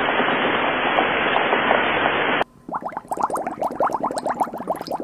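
Steady rain hiss that cuts off abruptly about two and a half seconds in. Then water bubbling and splashing in a pot, a fast run of short gurgles.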